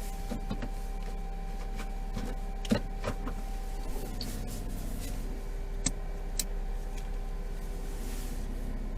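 Honda S660's 'coo-coo' steering noise as the wheel is turned: a thin steady squeal holding for about four seconds, then a lower one from about five seconds in, over the steady hum of the idling car, with a few light clicks. The noise shows up in cold winter weather.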